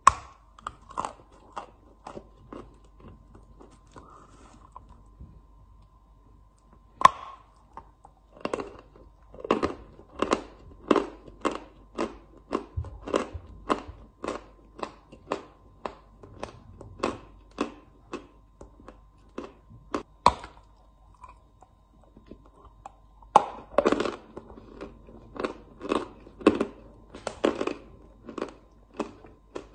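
Close-up crunching as a lump of white chalk is bitten and chewed: sharp separate crunches, one or two a second, the loudest bite at the very start, with a quieter spell of a few seconds early on before the crunching picks up again.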